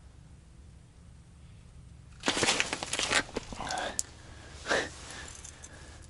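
Rustling and crinkling handling noise of winter clothing and small ice-fishing rods being grabbed and worked by hand. It starts suddenly about two seconds in and comes in several rough bursts, with a sharp click near the middle.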